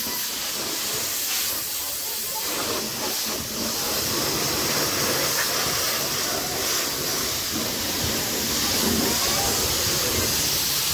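High-pressure plunger-pump car washer spraying a jet of water: a steady hiss, with a deeper rushing that joins about two and a half seconds in.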